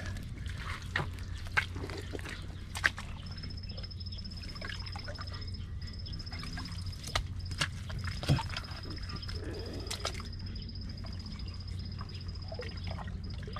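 Wet mud squelching and smacking as a hand digs deep into a mud crab's burrow, with scattered sharp slaps. From about three seconds in, an insect trills steadily at a high pitch, with brief breaks.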